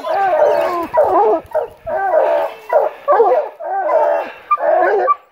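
A pack of hunting hounds baying at the tree: short, pitch-bending bawls from several dogs overlapping one after another with hardly a break, the bay of hounds that have treed a mountain lion.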